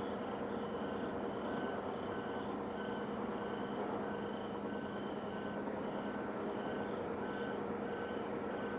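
A steady droning hum from the sky, with a constant low tone under it. Over it, a faint short chirp repeats about twice a second.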